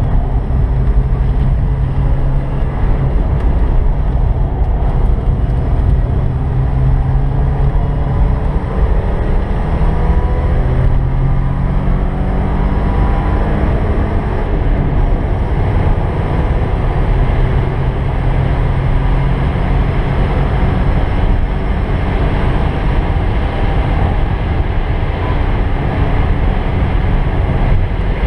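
1986 Porsche 944's naturally aspirated four-cylinder engine, heard from inside the cabin, running hard at track speed under a haze of road and wind noise. About a third of the way in its pitch climbs for several seconds as the car accelerates onto a straight, then holds steady.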